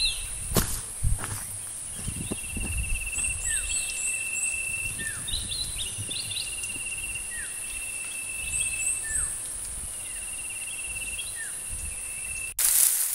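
Field ambience of insects and birds: a steady high insect buzz, a pulsing trill in several bouts of a few seconds each, and short falling bird chirps, some in quick series of three to five. Near the end it cuts abruptly to a louder noisy rustle.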